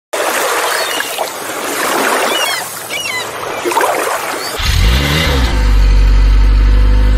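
Soundtrack sound effects: a loud noisy rush with a few short high chirps, then a low humming drone that swells about halfway through, bends up and down in pitch, holds steady and cuts off abruptly near the end.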